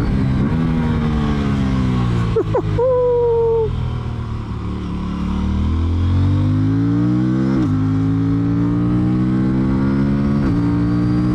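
Aprilia Tuono 457's parallel-twin engine. Its note falls as the bike slows off the throttle, then rises under acceleration. It drops suddenly twice with quick upshifts, about two-thirds of the way in and near the end.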